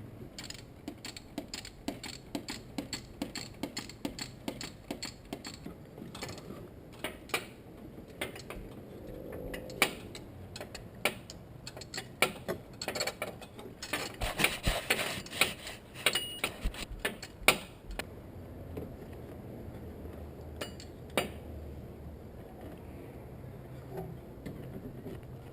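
Socket ratchet wrench clicking in runs as the new alternator's mounting bolts are run in and tightened, about two to three clicks a second at first. There is a denser burst of clicks and metal clatter about halfway through.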